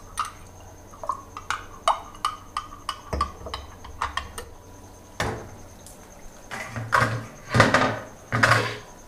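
Spoon stirring curry in a cooking pot: a run of light clicks and knocks against the pot, then a few louder, longer strokes over the last four seconds.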